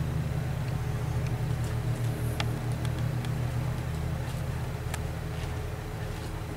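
A steady low machine hum, with a few faint scattered clicks over it.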